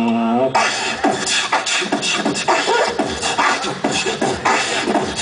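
Beatboxing into a microphone over stage speakers: a held humming vocal tone bends upward and breaks off about half a second in, then gives way to a fast, dense run of vocal percussion.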